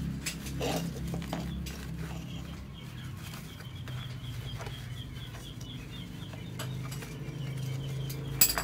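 Workshop handling noise while fiberglass exhaust packing is worked by gloved hands: scattered light clicks and clinks over a steady low hum, with the sharpest clicks near the end.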